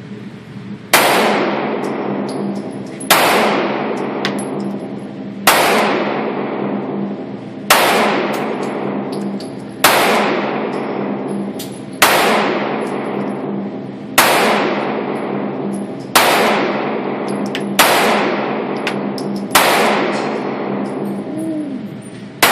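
9mm pistol fired in slow, steady single shots, about ten in all, roughly two seconds apart. Each loud crack is followed by a long echoing decay.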